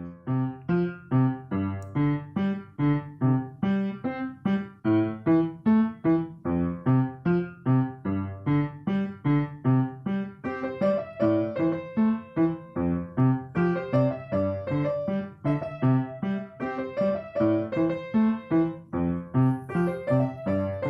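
Piano music: a steady, evenly paced run of notes and chords, each note struck and left to ring.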